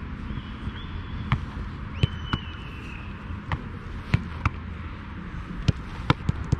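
A football being struck and caught in a goalkeeper drill: sharp thuds of the ball off a boot and smacks of it into goalkeeper gloves, about nine in all, several coming in quick pairs.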